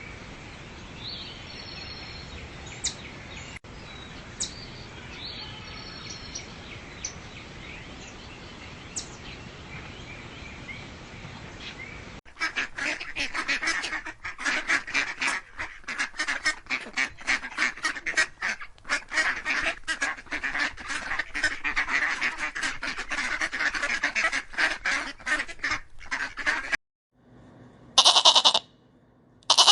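A steady outdoor background with a few faint, high bird chirps. About twelve seconds in, a flock of birds breaks into a dense, rapid run of calls that goes on for about fifteen seconds and cuts off suddenly. A short, louder call follows near the end.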